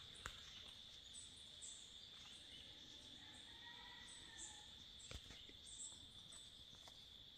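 Near silence: a steady high-pitched insect trill with faint bird calls and a couple of small clicks.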